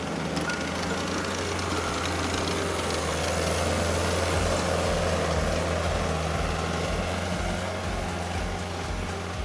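Steyr tractor engine running steadily, with a low pulsing about twice a second from about halfway through.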